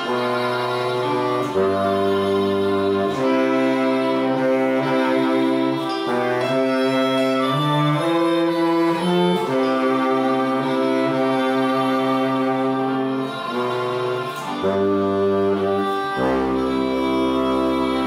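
Bass saxophone playing a slow hymn melody in long, held notes, with other sustained parts sounding under it as chords. A very low bass note comes in near the end.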